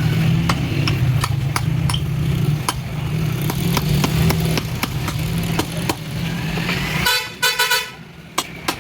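A steady low hum with scattered sharp clicks and taps. About seven seconds in, the hum stops and a short, pulsing horn-like honk sounds.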